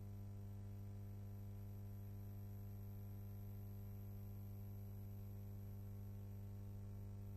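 Faint steady electrical hum with a low buzz and light hiss on an otherwise silent soundtrack, unchanging throughout.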